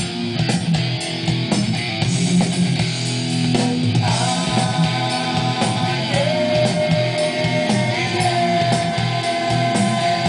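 Rock music with guitar, played from a CDJ through a Gradiente DS20 receiver's auxiliary input and Gradiente Spectrum 65 loudspeakers. A long held, wavering note runs from about four seconds in, and the music cuts off abruptly at the end.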